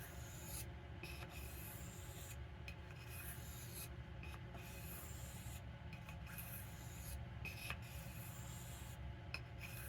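Knife blade being stroked over an oiled soft Arkansas sharpening stone: a faint, repeated scraping hiss of steel on stone, stroke after stroke with brief pauses between them.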